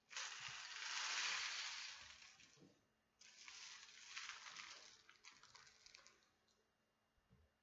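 Homemade paper-towel-tube rain stick filled with rice, popcorn kernels and small pasta, tipped twice: a rushing patter as the filling cascades down past the toothpicks. The first pour lasts about three seconds, the second starts about three seconds in and thins out into scattered ticks.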